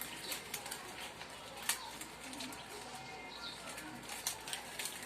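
Quiet scattered crackling clicks, the sharpest about two seconds in and again near the end, with a bird cooing faintly in the background about halfway through.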